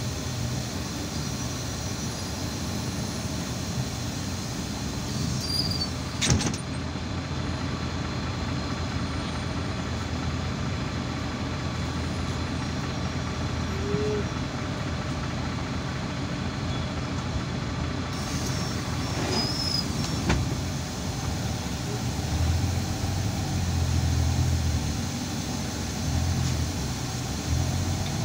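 Irisbus Citelis 12 m city bus heard from inside the passenger cabin while under way: steady engine and road noise. A sharp click comes about six seconds in, and the engine grows louder in the last few seconds.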